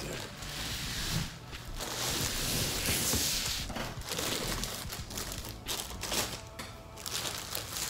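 Clear plastic bags wrapped around a pair of sneakers crinkling and rustling as they are handled, in uneven spells, fullest a few seconds in.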